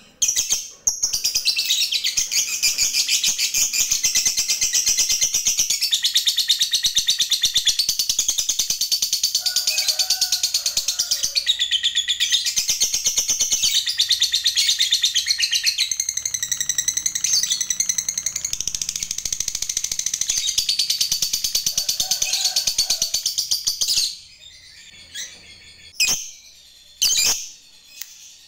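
A lovebird singing a long 'ngekek': one unbroken, rapid, high-pitched chattering trill lasting over twenty seconds. It breaks off suddenly, and a few short single chirps follow near the end.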